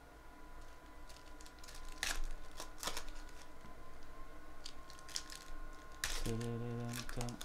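Crinkling and tearing of foil trading-card pack wrappers being handled and opened, with a few sharp crackles. Music comes in about six seconds in.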